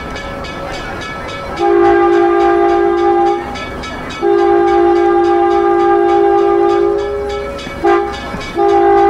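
Train horn sounding the grade-crossing signal, a steady chord of several notes: two long blasts, a short one, then a final long blast near the end, over the rumble of the moving train.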